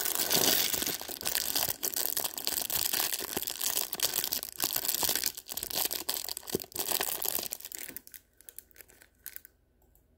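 Clear plastic wrapping crinkling and tearing close to the microphone as it is pulled open. It stops after about eight seconds, leaving only a few scattered rustles.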